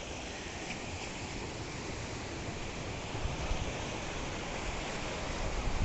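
Steady wash of wind and surf from the sea below, with wind rumbling on the microphone, more strongly from about three seconds in.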